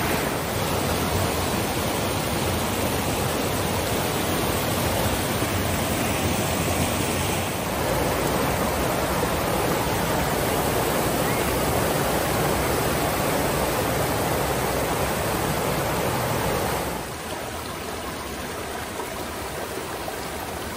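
Waterfall: a steady rush of falling water. It becomes somewhat quieter about seventeen seconds in.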